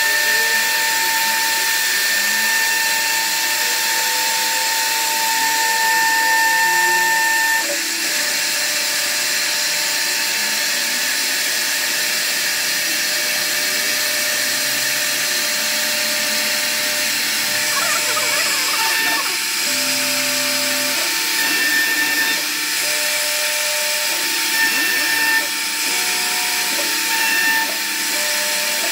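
CNC router cutting wood: a loud, steady high whine over the hiss of the cutter. The whine changes about eight seconds in, and short tones at different pitches come and go later on.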